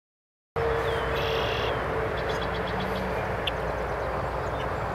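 A male red-winged blackbird sings its buzzy trilling song once, about a second in, followed by a quick run of small ticks. Both sit over loud, steady background noise with a steady hum, which starts suddenly about half a second in after silence.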